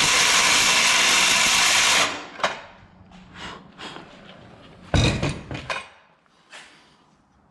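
A power saw cutting aluminum stock with a loud, steady scream that stops suddenly about two seconds in. Then the metal pieces are handled, with a few light clanks and one loud knock about five seconds in.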